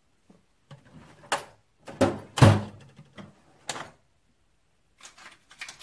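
A few knocks and clunks of metal tools or stock being handled and set down in a workshop, the two loudest about two seconds in, then a cluster of lighter clicks near the end.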